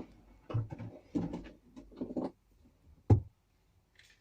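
Soft handling sounds in a small room, then one sharp knock about three seconds in.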